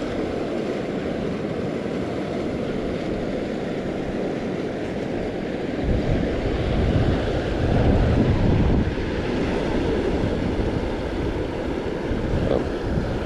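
Steady rushing of running creek water mixed with wind buffeting the microphone, swelling louder for a few seconds past the middle.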